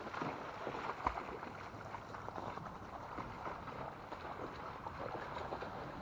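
Lake water splashing and sloshing as several dogs swim and paddle close by, with a single sharp knock about a second in.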